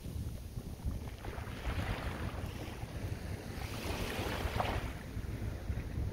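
Small waves washing up a sand beach, surging twice, about a second in and again around four seconds, over wind rumbling on the microphone.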